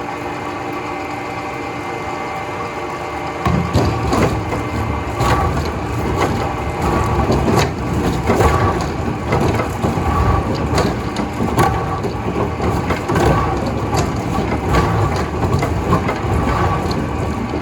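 Factory machinery humming steadily. About three and a half seconds in, loud continuous cracking and splintering of wood begins as a machine breaks into a log.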